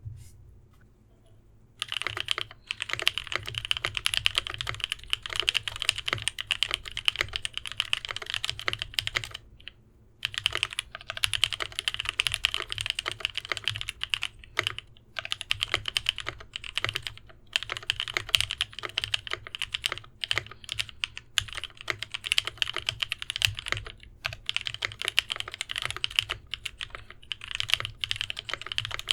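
Fast typing on an Idobao ID80 mechanical keyboard with lubed Novelkeys Cream linear switches, fitted with an aluminium back plate damped with sorbothane: a rapid, continuous run of keystroke clacks. It starts about two seconds in and stops for about a second around ten seconds in.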